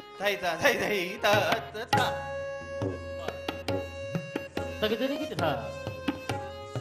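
Kathak accompaniment in teen taal: tabla strokes over a steady, repeating harmonium lehra, with a gliding melody line at the start and again about five seconds in.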